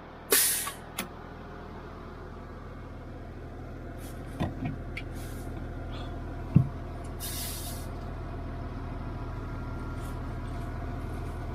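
Heavy diesel truck engine running steadily, with short bursts of air-brake hiss about half a second in and again around seven seconds, and one sharp metallic knock just before the second hiss.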